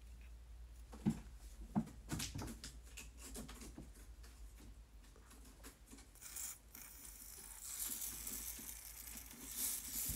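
Two sharp clicks and some handling rustle, then an aerosol spray hissing for about four seconds, as when hair spray is applied to fringe hair.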